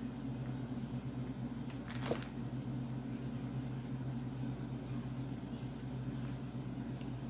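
Steady low hum of room background noise, with a single brief click about two seconds in.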